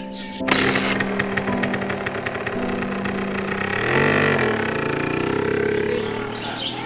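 Small motorcycle engine started about half a second in, then running with a quick rattle of firing strokes; around the middle its pitch rises and falls again as it is revved. Soft background music continues underneath.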